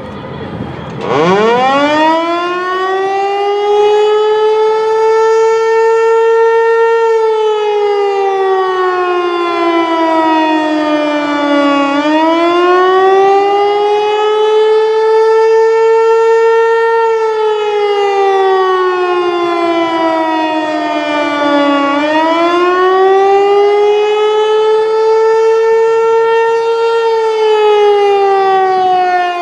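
Outdoor civil-defense warning siren sounding a test. It winds up from a low pitch about a second in, then runs a loud, slow wail, rising, holding, then falling in pitch roughly every ten seconds.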